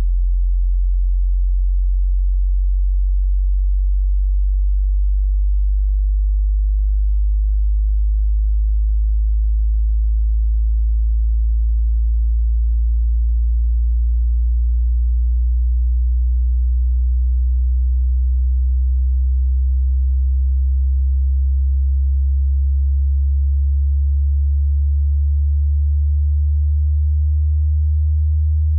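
A pure sine test tone, very low like a deep hum, rising slowly and steadily in pitch: a frequency sweep played for a hearing test.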